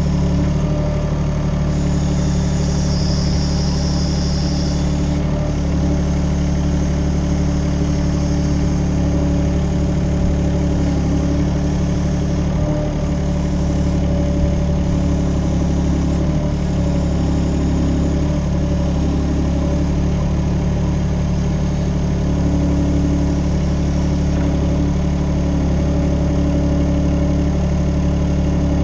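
A UHI UME12 mini excavator's 13 hp Yanmar engine runs steadily while digging, its pitch dipping briefly now and then.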